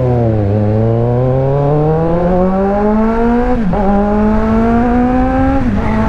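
Kawasaki Z900's 948 cc inline-four, fitted with an aftermarket Orion exhaust, accelerating hard. The engine note climbs steadily through the gears, drops at an upshift about three and a half seconds in, climbs again, and dips once more at another shift near the end.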